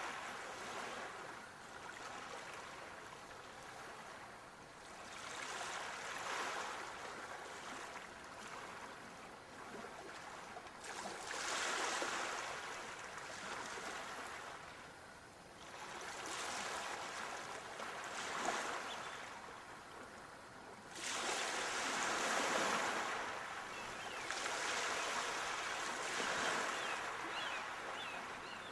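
Sea waves breaking and washing on a shore, each surge of surf swelling and fading about every five to six seconds.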